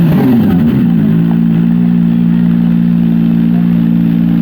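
Kawasaki ZX-25R inline-four engine breathing through an Akrapovic R8 aftermarket exhaust. The revs fall away from a free rev over about the first second, then hold steady at a raised engine speed.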